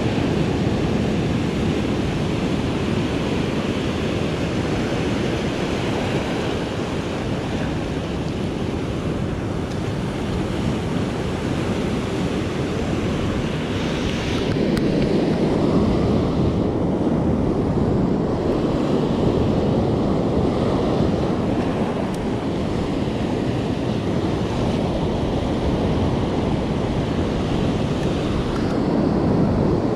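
Ocean surf breaking and washing over shore rocks, with wind buffeting the microphone. The wash grows louder about halfway through.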